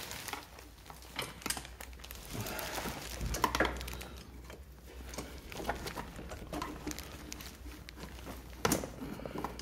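Workshop handling noises: scattered light clicks and ticks of small tools and engine parts being handled, with a plastic bag rustling. The sharpest clicks come about three and a half and about eight and a half seconds in.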